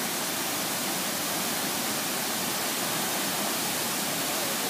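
Large waterfall: a steady, even rush of falling water.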